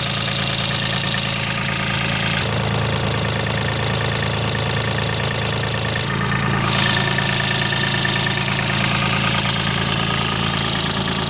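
IHI 35N mini excavator's diesel engine running steadily at idle, its tone shifting slightly twice.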